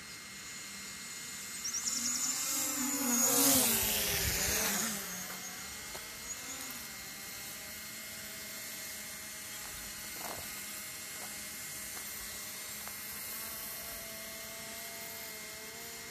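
A quadcopter drone's propeller whine swells to its loudest about three to four seconds in, its pitch sliding up and down. It then fades to a faint steady hum.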